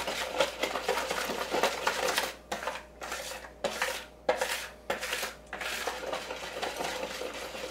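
Metal wire whisk beating thin cornbread batter in a plastic mixing bowl, clicking and scraping against the bowl. The whisking is fast and continuous, slows midway to separate strokes about every half second, then speeds up again near the end.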